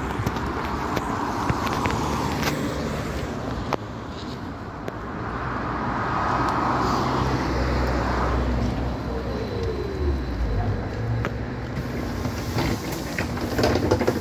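Street traffic noise, then an AKSM-321 trolleybus pulling in close and stopping, with a short falling whine as it slows. A few knocks come near the end.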